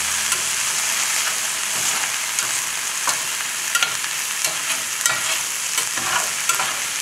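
Cabbage, mixed vegetables and egg sizzling in hot oil in a stainless steel pan, stirred with a metal slotted turner that scrapes the pan's bottom to loosen what is sticking, giving scattered light clicks over a steady hiss.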